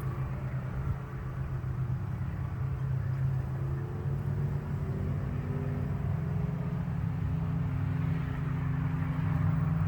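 Steady low hum of a mass of honeybees flying in circles in front of the hive entrance: young foragers on their orientation flight, not a swarm.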